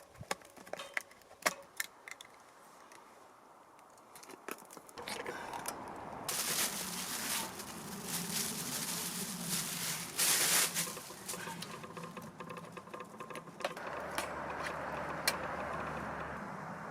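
Soup being cooked in a pot on a portable propane stove: a few light clicks and knocks, then a steady crackling hiss from about five seconds in, loudest for a few seconds in the middle.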